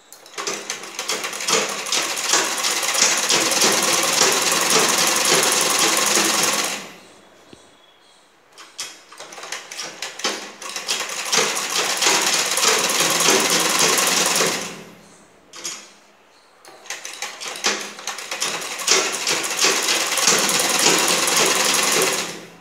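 Sewing machine stitching fabric in three runs of several seconds each: a fast, even clatter of the needle that builds up at the start of each run, with short pauses between.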